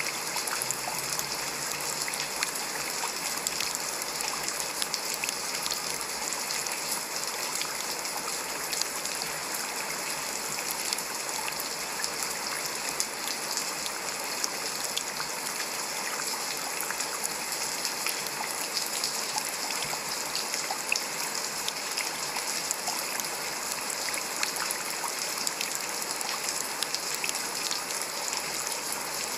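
Steady heavy rain falling on grass, foliage and pavement: an even hiss scattered with many small drop ticks.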